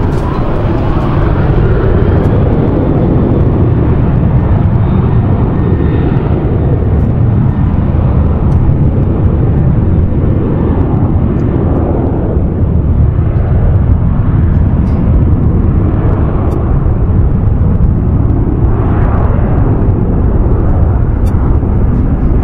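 Boeing 737-800's CFM56 jet engines at takeoff thrust during the takeoff roll: a loud, steady deep rumble.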